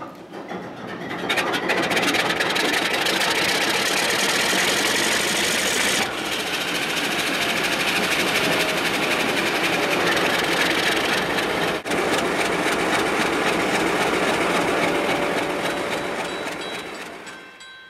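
The ALCO 251 V12 diesel engine of an MLW FPA-4 locomotive starting up, heard from the locomotive's roof: it catches and rises to a loud, steady run within about a second and a half, then fades near the end.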